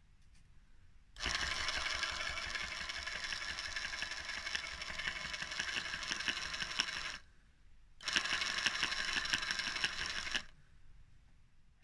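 Belt-driven electric starter with a new motor and a 3D-printed pulley, run up twice: about six seconds, a short pause, then about two and a half seconds more. Each run is a steady whirring of motor and belt that starts and stops suddenly.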